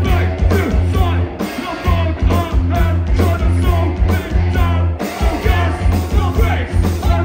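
Live punk rock band playing loud: distorted electric guitars, bass and drums with a steady heavy kick-drum beat under the singer's vocals into a microphone. The bass drops out briefly about a second and a half in.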